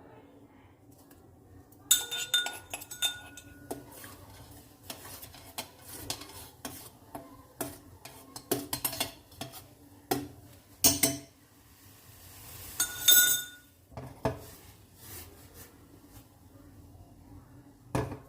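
Kitchen utensils clinking, knocking and scraping against metal pots and dishes during tea making, in scattered irregular strikes. A couple of them ring out, about two seconds in and again around thirteen seconds.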